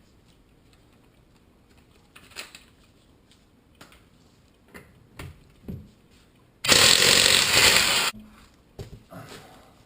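Scattered small clanks and knocks of tools and wheel hardware, then a power tool runs in one burst of about a second and a half, starting and stopping suddenly, while the car's wheel is being taken off.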